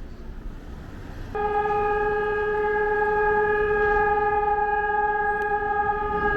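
Air raid siren sounding one steady, unwavering tone, starting abruptly about a second in over low street rumble. A continuous steady tone is Taiwan's all-clear signal that ends the air raid drill.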